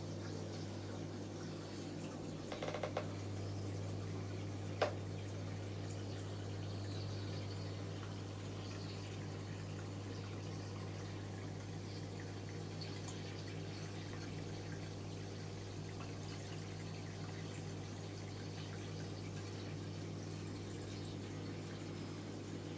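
Aquarium pump humming steadily with water bubbling in the tank. There are a few soft clicks about three seconds in and one sharp click about five seconds in.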